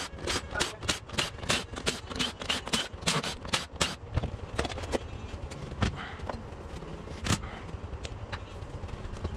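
Tools and scooter parts being handled: a quick run of clicks and clacks for about four seconds, then a few scattered knocks.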